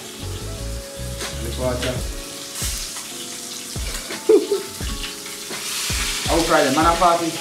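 Fried barracuda steaks sizzling in oil in a frying pan on a gas stove, heard under background music with a steady bass line.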